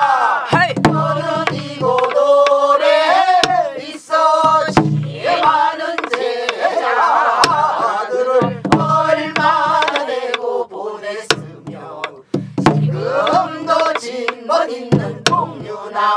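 A group of men's and women's voices sings a Namdo (southern Korean) folk song together, with wide, wavering vibrato. Buk barrel drums beat along with low thumps every second or two and sharp stick clicks.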